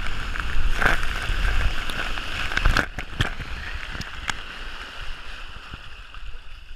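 Water rushing and splashing along a water slide, with a low rumble of wind on the microphone and a few sharp knocks; loudest in the first three seconds, then fading.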